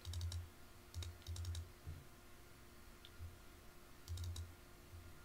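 Computer mouse clicking in quick double-click clusters, a few times over, each with a faint dull thud, while opening folders.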